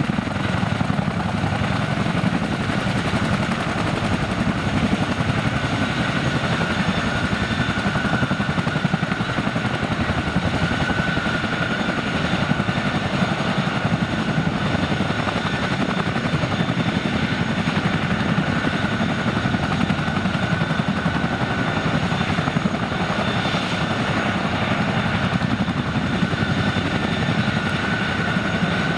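CH-147F Chinook twin-engine tandem-rotor helicopter running on the ground with both rotors turning: a rapid, even rotor chop under a steady high turbine whine.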